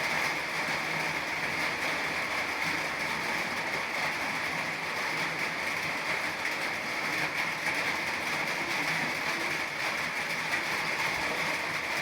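Steady rain falling without letup, an even hiss that holds at one level.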